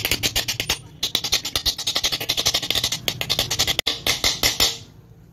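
Small hammer rapidly tapping a new ball bearing into its seat in a ceiling fan's end cover: a fast, even run of metal knocks, several a second. The knocking pauses briefly about a second in and stops shortly before the end.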